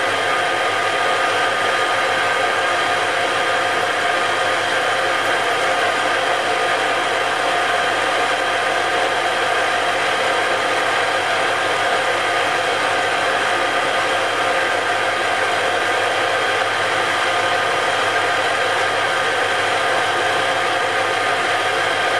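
Metal lathe running steadily: the motor and headstock gears give a constant whine of several tones over a mechanical hum. Meanwhile a centre drill in the tailstock drill chuck is fed against the end of a drill-chuck arbour that is still too hard to cut.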